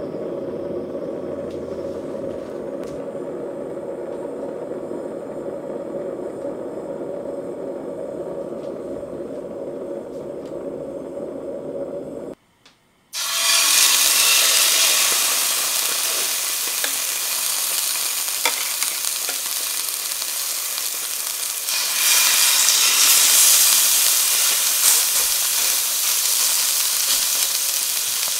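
Portable gas stove burner running steadily under an empty stainless pan, a low even rush. After a short break about twelve seconds in, duck breasts sizzle loudly as they are laid skin-side down in the hot pan, the sizzle getting louder near the end as more meat touches the pan.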